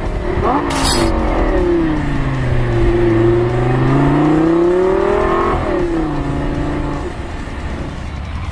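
Car engine revving, its pitch dipping and then climbing again, dropping sharply about five and a half seconds in and then running steady. A sharp click about a second in.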